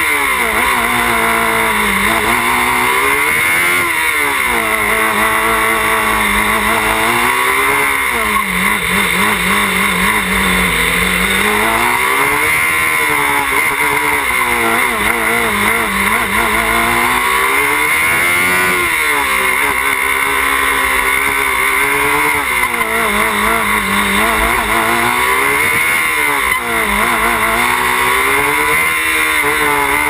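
Open-wheel race car's engine heard onboard while lapping. It revs up and drops back again and again, a rise and fall every two to four seconds, as the car accelerates between corners and slows into them.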